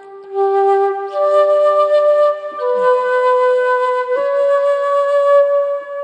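Background music: a slow melody of long held notes that step from one pitch to the next.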